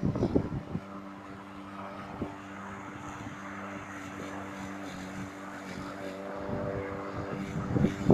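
Corded electric lawn mower running as it is pushed across grass, its motor and blade giving a steady hum that settles in about a second in.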